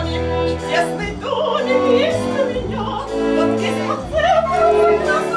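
Music: a voice singing in an operatic style with vibrato, over instrumental accompaniment with sustained low notes.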